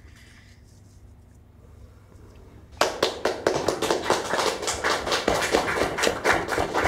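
A class of students applauding, starting suddenly about three seconds in after a few seconds of quiet room tone.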